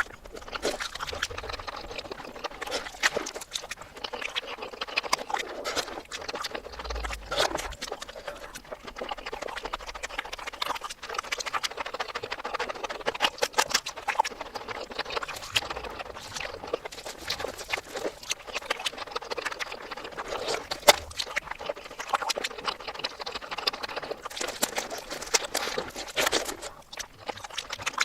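Close-miked eating sounds played in reverse: a constant run of wet mouth clicks, smacks and chewing noises.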